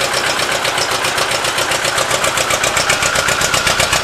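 Ford 8N tractor's four-cylinder flathead engine idling steadily with an even, rapid beat, just after an oil change to thicker oil with Lucas heavy-duty oil stabilizer, its oil pressure holding at about 10 psi.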